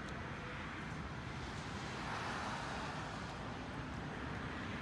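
Road traffic noise, with a car passing that swells about two seconds in and then eases off.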